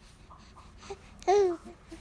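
Young infant babbling: one short, loud coo about a second in, its pitch rising a little and then falling, with softer small vocal sounds around it.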